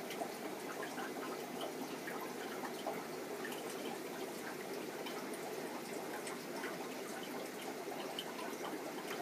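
Fish-tank water trickling and bubbling steadily, with many small drips and pops throughout.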